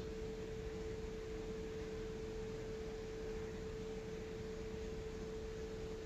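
A single steady pure tone held at one pitch, with a faint even hiss beneath it.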